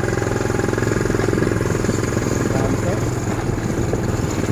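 Motorcycle engine running steadily at cruising speed, heard from on board while riding.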